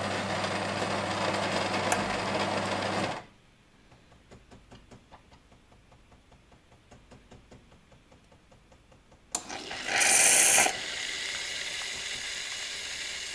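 Polaris PACM 2060AC automatic coffee machine's built-in grinder running with a steady low hum, cutting off abruptly about three seconds in. Faint ticking follows, then near the end a click, a brief loud hiss and a steady softer hiss as the machine moves on to frothing the milk for a latte.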